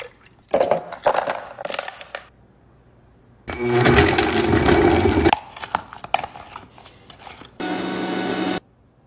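Frozen fruit chunks clattering into a blender jar, then a blender running hard for about two seconds, grinding frozen fruit into a thick smoothie. A few knocks follow, and near the end the blender runs again for about a second with a steady hum that cuts off suddenly.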